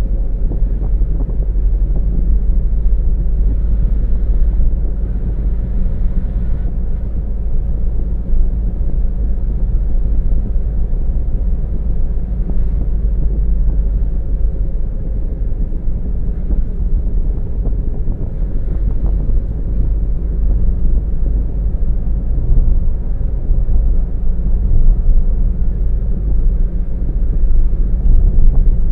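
Car driving along a road: a steady low rumble of engine and tyre noise with some wind buffeting on the microphone.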